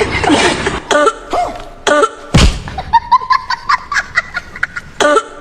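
A person coughing in a series of loud, abrupt coughs, with voiced throaty sounds between them; the strongest cough comes about two and a half seconds in.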